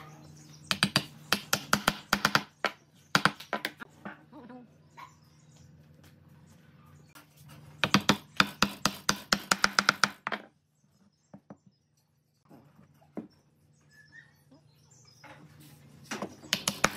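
Hammer tapping pine blocks to seat them as they are glued together: quick runs of sharp knocks on wood, several a second, in four bursts.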